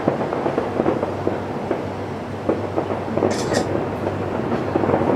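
Rapid-fire fireworks barrage: many shells bursting in quick succession, their reports running together into a continuous crackling rumble that grows louder near the end.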